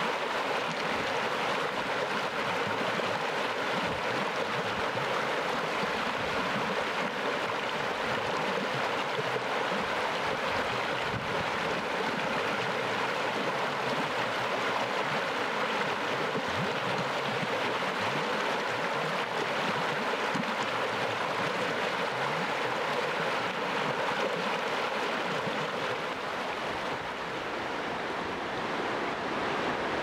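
Azusa River's clear mountain water rushing steadily through fast riffles over its stony bed, briefly a little softer near the end.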